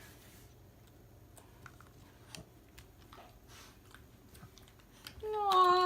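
A dog chewing and crunching on a homemade rice-cake and peanut-butter birthday cake: soft, irregular crunches and clicks. A person's voice comes in near the end.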